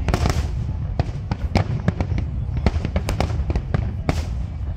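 Aerial fireworks bursting in quick succession: a rapid run of sharp bangs and cracks over a continuous low rumble.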